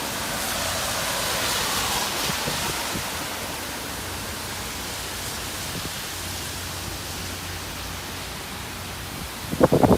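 Typhoon wind and rain making a steady rushing noise that swells about a second in. Near the end comes a quick run of loud low thumps.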